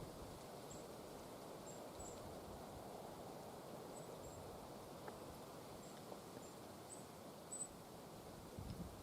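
Faint rural outdoor ambience: a steady soft rushing haze with brief high-pitched chirps about once a second, and a soft low bump near the end.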